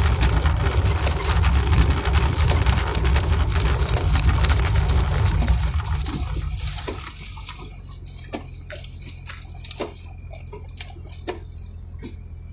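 Car interior: road noise and rain spray with a low rumble while driving, easing off about seven seconds in as the car slows to a stop. An idling hum remains, with scattered raindrops ticking on the car.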